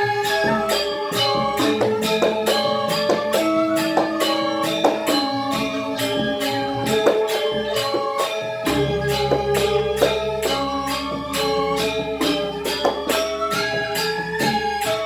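Balinese gamelan gong kebyar music: bronze metallophones playing held, ringing tones that change in steps over a fast, even beat of sharp metallic strikes, with a deeper gong tone entering a little past halfway.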